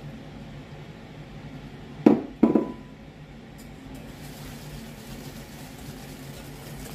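Two sharp knocks of glassware about two seconds in, the second ringing briefly like a glass clink. From about four seconds on, a wire whisk swishes through beaten eggs and brown sugar in a glass bowl.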